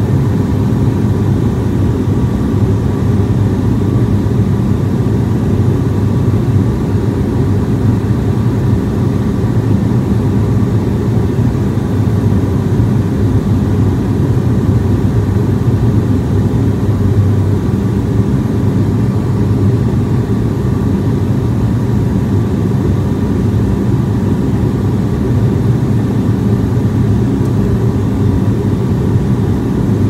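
Cabin drone of an ATR twin-turboprop airliner in flight on its descent, heard inside the cabin: a loud, steady low hum with a faint steady whine above it.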